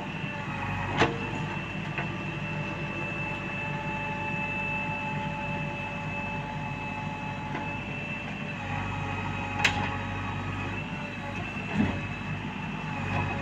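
Heavy diesel machinery engine running steadily under load, with a high steady whine over it. Three sharp knocks come through, about a second in, near ten seconds and near twelve seconds.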